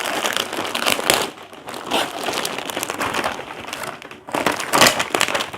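Gift packaging crinkling and rustling in uneven bursts as a present is unwrapped and its contents pulled out.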